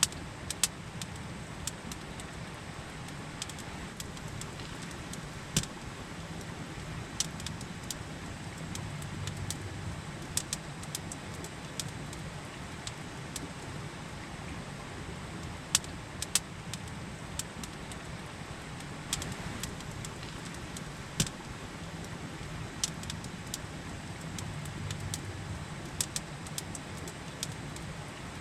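Campfire crackling, with sharp pops at irregular intervals, over the steady rush of a river.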